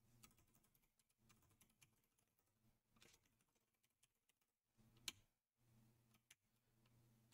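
Near silence with a few faint keystrokes on a computer keyboard, one sharper click about five seconds in.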